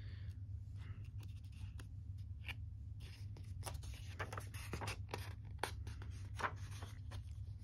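Faint rustling and light taps of a paper picture book being handled, its page turned over in the second half, over a steady low hum.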